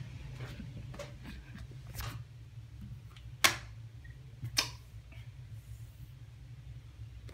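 Handling noise from a phone held in the hand: a few sharp clicks and rubs, the loudest about three and a half seconds in, over a steady low hum.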